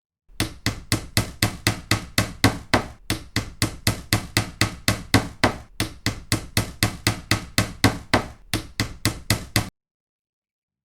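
A hand tool striking a hard surface again and again, about four sharp taps a second, broken by three short pauses; the taps start and stop abruptly.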